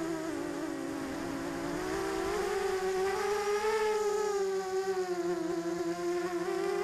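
Motors and propellers of a Diatone 250-size racing quadcopter buzzing in flight, heard close up from its onboard camera. The pitch wavers with the throttle, dipping a second or two in, climbing around the middle, then dipping and rising again.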